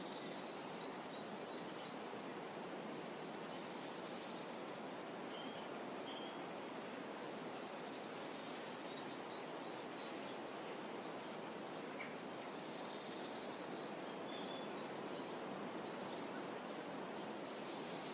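Steady, even hiss of shoreline ambience, with faint short bird chirps scattered through it.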